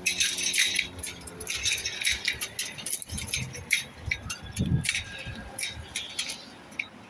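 Train passing over a level crossing: an irregular rattling and clattering that dies away about six and a half seconds in, with a low rumble in the middle.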